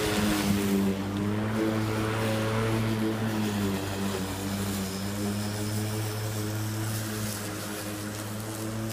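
Electric rotary lawn mower running with a steady motor drone as it is pushed across grass.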